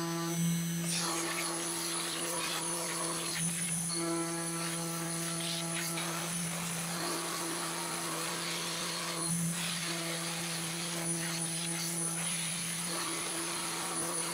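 Desktop CNC router spindle running with a steady hum while its end mill cuts a pine board. About a second in, a broad rushing noise and a high steady whine of a vacuum join it.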